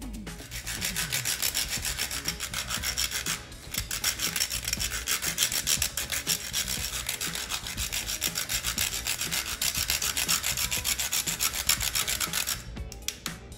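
A whole spice being grated on a fine metal rasp grater: rapid back-and-forth scraping strokes. There is a short pause about three and a half seconds in, and the strokes stop near the end.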